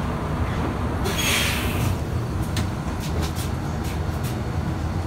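Steady low rumble of a New Flyer XD60 articulated diesel bus heard from inside the cabin while under way. A brief hiss comes about a second in, and light rattles and clicks follow over the next few seconds.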